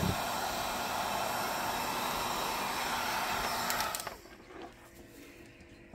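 Heat gun blowing steadily, heating the RC nitro engine to free a stuck part, then switched off about four seconds in.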